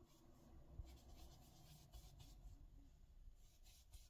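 Faint scratchy swishes of a round foam ink blending tool rubbed over cardstock letters in a series of short, irregular strokes.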